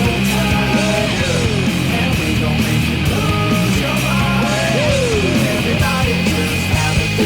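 Loud rock music from a band, with distorted electric guitars and bass in a steady groove and bending lead lines over it.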